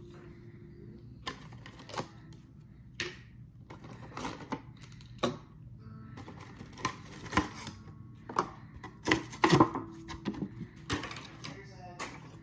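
Hands handling and opening a Hot Wheels Monster Trucks clear plastic window box: irregular plastic clicks, crackles and taps, busiest about nine to ten seconds in.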